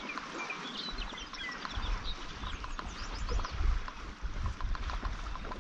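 Outdoor shoreline ambience: birds chirping in quick short calls, mostly in the first half, over gusty wind on the microphone and small waves lapping.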